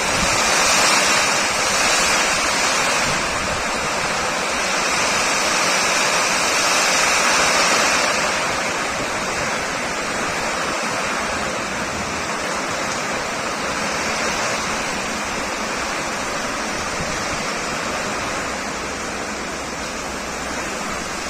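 Heavy downpour: torrential rain pouring steadily, a little louder for the first eight seconds or so.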